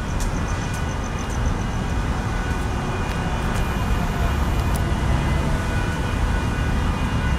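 Steady rush-hour city traffic noise: car engines and tyres at a congested intersection, with a low, even rumble. A faint rapid ticking runs through the first second or so.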